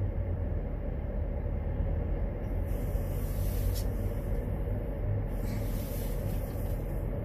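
Car engine idling, heard from inside the cabin as a steady low hum, with brief hissing sounds about two and a half and five seconds in.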